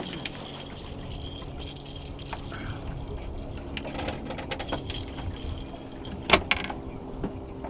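Gear being handled in a small fishing boat: light clinking and rattling, with one sharp knock about six seconds in, over a low steady hum.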